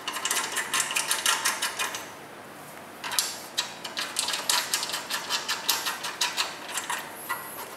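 Rapid small metallic clicks and rattles as a short bolt is fitted by hand into a treadmill's steel frame, in two runs with a short pause about two seconds in.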